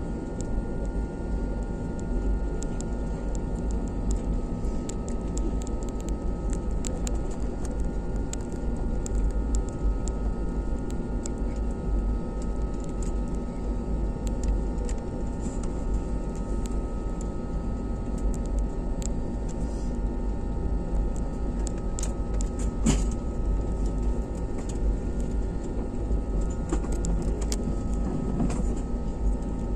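Cabin noise of an Airbus A320neo taxiing: a steady engine hum and deep rumble with a few constant tones. Small clicks and rattles are scattered through it, with one sharper knock about 23 seconds in.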